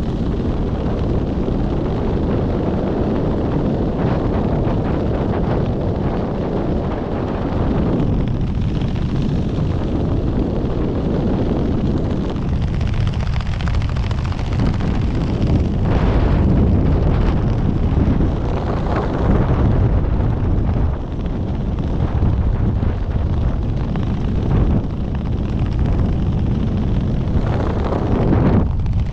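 Heavy wind rushing over the microphone in a skydive: a steady low buffeting rush that swells and eases, with no speech.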